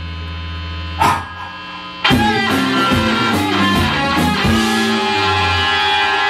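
Indie rock band playing live with electric guitars, bass and drums: held guitar tones, one crash about a second in, then a run of drum hits with strummed electric guitar chords from about two seconds in, settling into sustained ringing guitar notes.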